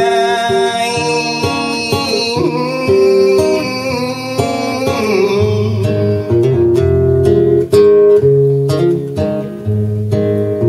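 A man singing live with his own strummed steel-string acoustic guitar. He holds a long wavering note over the guitar for about the first half. After that the strumming carries on alone in a steady rhythm.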